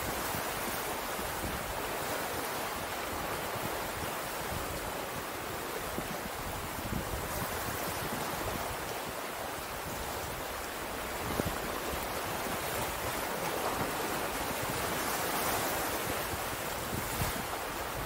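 Ocean surf washing in steadily, swelling and easing, with a short knock about eleven seconds in.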